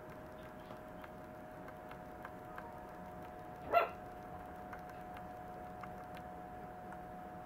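Maltese puppy giving a single short, high-pitched bark about halfway through, over a faint steady hum.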